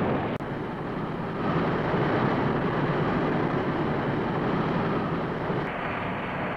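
Sci-fi spaceship engine sound effect: a steady rushing rumble as the craft hovers on its jets, broken by a brief dropout about half a second in.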